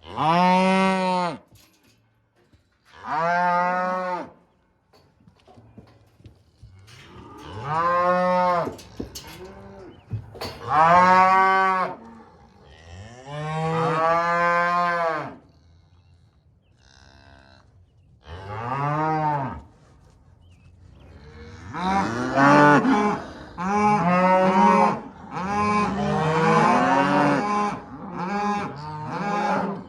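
Cattle mooing: a string of long calls, each rising then falling in pitch, with gaps between them at first, then several animals calling over one another through the last third.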